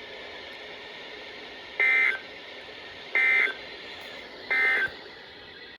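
Three short bursts of Emergency Alert System SAME digital data tones, the end-of-message code that closes a NOAA Weather Radio warning broadcast, about a second and a half apart over a steady radio hiss.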